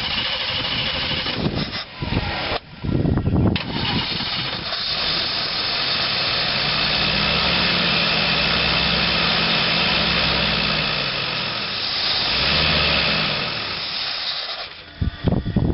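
1986 GMC Blue Bird bus's 366 big-block V8 cranking on the starter, catching about four seconds in and running steadily, with a brief rise in revs near the end before it stops. It is hard to start because the Holley four-barrel's accelerator pump is not pumping fuel when the pedal is pushed.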